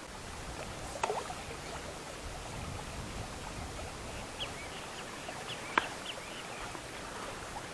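Quiet open-air ambience with a steady hiss, a few faint short bird chirps in the middle, and two sharp clicks, about a second in and near six seconds in.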